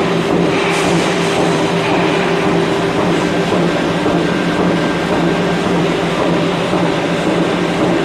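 Power hammer running steadily: a continuous loud mechanical hum and clatter with no separate hammer blows standing out.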